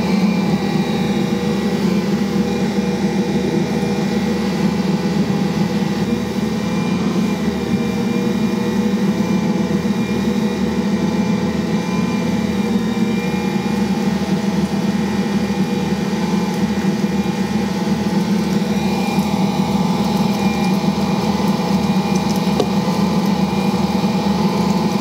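Ankarsrum stand mixer running steadily: a constant motor hum as the rotating bowl carries bread dough around the roller, working in added flour during kneading.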